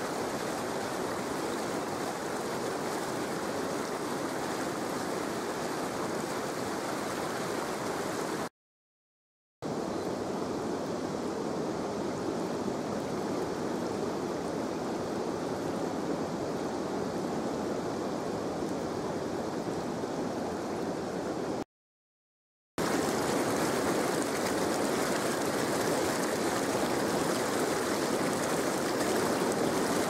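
Shallow river water flowing fast over stones: a steady, even rush. It cuts out completely for about a second twice and comes back slightly louder after the second break.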